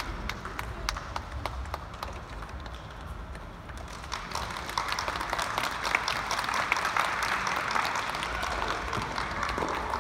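Scattered applause from spectators at the end of a tennis match, with separate hand claps; the sound grows fuller from about halfway through.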